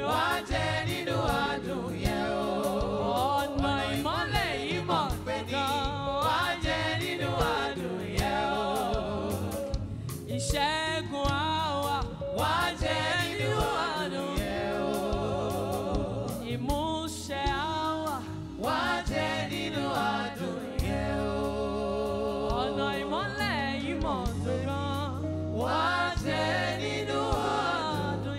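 Live gospel worship song: a woman lead singer with backing singers, over a band with bass guitar. The voices hold wavering notes over a steady bass line.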